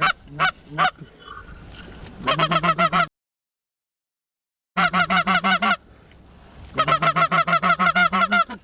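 Goose honking in rapid runs of short, clipped notes, several quick honks at a time, repeated four times; the sound cuts out completely for over a second about three seconds in.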